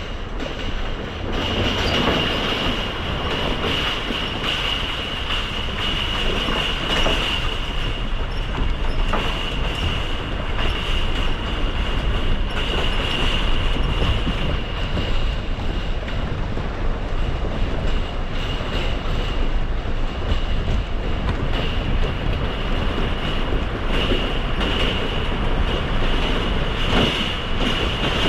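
A car fording a shallow river crossing: steady rushing of water and tyre noise over the deep rumble of the running car, with a steady high-pitched whine throughout.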